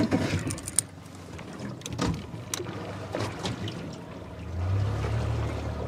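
Sharp clicks and knocks as the plug on a trolling motor is handled, over water splashing about the boat. About four and a half seconds in, the boat's outboard comes up as a steady low engine hum.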